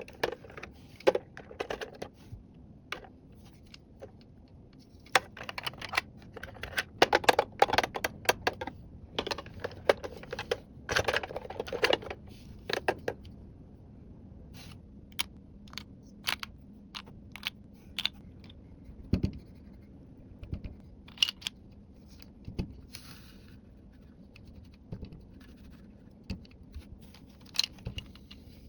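Small plastic toy pieces and packaging being handled: a busy run of clicks, taps and scratchy rustles for the first half or so, then sparser single clicks and taps.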